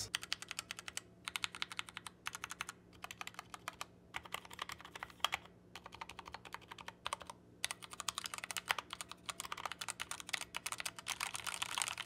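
Typing on a Redragon K599 mechanical keyboard with Outemu red linear switches: a quick, uneven clatter of keystrokes broken by a few brief pauses.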